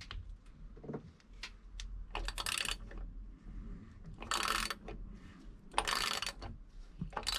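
A 3/8-inch socket ratchet clicking in about four short bursts, with scattered metallic taps between, as it works a cap-type oil filter wrench to loosen the oil filter.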